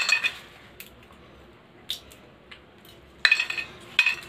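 Peanuts being shelled by hand: faint cracks of shell, and kernels dropping into a stainless-steel bowl with short metallic clinks, one at the start and two louder ones near the end.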